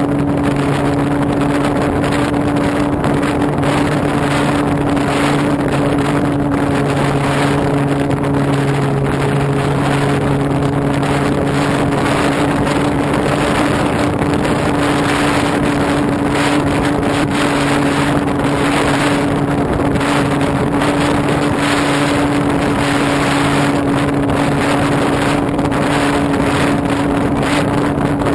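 Motor and propeller of a radio-controlled Pitts biplane running at a steady, unchanging pitch, heard from the GoPro mounted on the plane, with wind rushing over the microphone.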